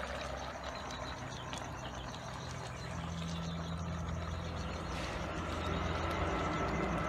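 A low, steady engine hum over a constant hiss, growing louder from about three seconds in.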